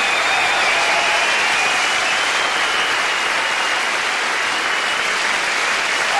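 Concert audience applauding and cheering steadily as a live jazz-funk tune ends.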